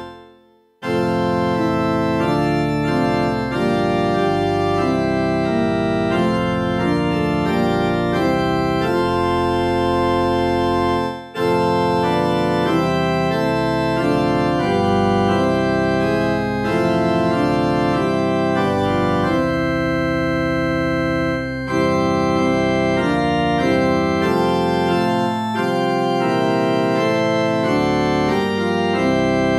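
Background organ music playing sustained chords that change in steps. It fades out right at the start and a new piece begins about a second in.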